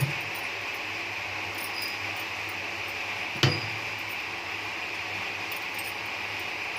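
A kitchen utensil clinks once against metal cookware about three and a half seconds in, with a short ring, over a steady background hiss.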